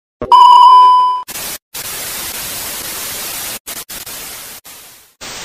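Electronic beep and TV-style static sound effect: a loud steady beep lasting about a second, then a loud hiss of static that cuts out briefly several times and fades near the end.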